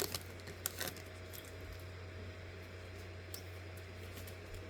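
Faint steady low hum with a few soft ticks as trading cards are handled between packs.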